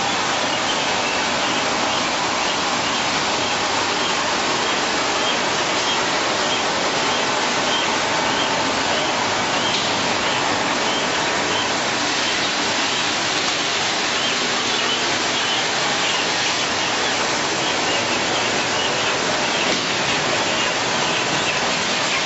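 Poultry slaughter line machinery running: a steady rushing noise with faint, regularly repeating high chirps or squeaks above it through the middle.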